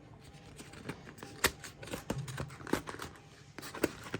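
Speaker box's inner packaging being handled and opened by hand: scattered light clicks and taps with faint rustling, the sharpest tap about a second and a half in and another near the end.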